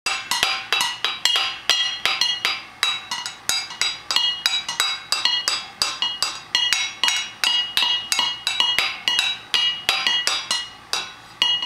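An upturned stainless-steel colander and stainless-steel pot beaten with wooden sticks by a toddler: a steady run of metallic strikes, about three a second, each ringing briefly, spacing out a little near the end.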